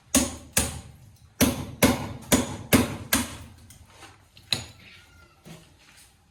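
A series of sharp knocks, about eight in uneven succession over the first four and a half seconds, each dying away quickly, then quieter.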